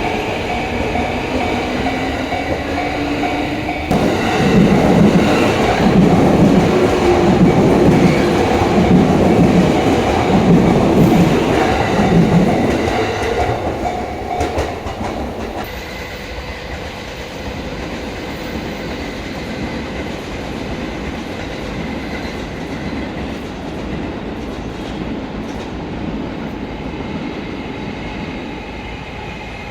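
An electric train passing over a level crossing. About four seconds in, its wheels start clattering over the rail joints in a run of heavy, roughly once-a-second beats. These last about eight seconds, then give way to a quieter steady rumble as the train draws away.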